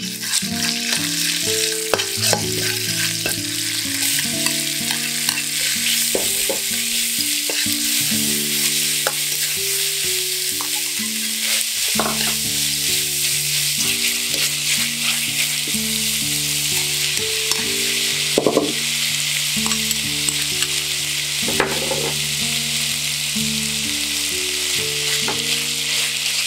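Oil and food sizzling hard in a hot wok during a stir-fry of beef, onion and garlic scapes. A metal wok spatula scrapes and clacks against the pan now and then.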